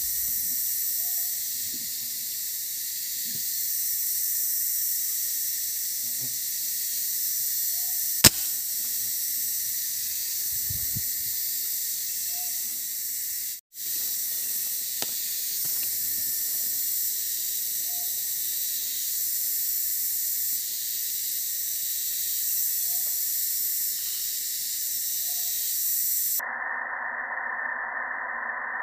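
Forest ambience: a steady high hiss with faint short bird calls every few seconds and one sharp click about eight seconds in. The hiss cuts off abruptly near the end.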